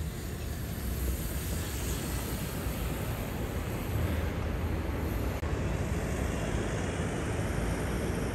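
Steady city street noise: traffic running past with a low rumble.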